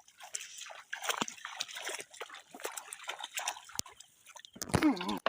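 Hands sloshing and splashing through shallow pond water, a run of irregular small splashes and drips. A person's short voiced call near the end.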